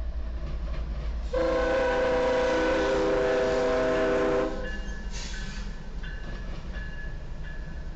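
Diesel locomotive air horn sounding one long chord of several notes, about three seconds, over the steady rumble of a passing train. After the blast the train rolls on with a short hiss and faint high squeals.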